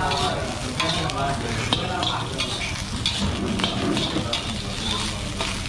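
Fried rice being stir-fried in a wok: a steady sizzle with a metal spatula scraping and knocking against the wok now and then. Voices talk in the background.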